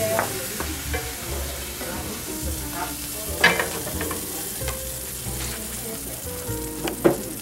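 Oil sizzling in a hot frying pan just emptied of stir-fried mushrooms, with a few sharp knocks of the wooden spatula and pan, the loudest about three and a half seconds in and near the end.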